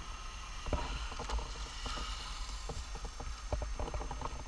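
Gloved hands rummaging through a wallet and papers, making scattered clicks and rustles over a low, uneven rumble.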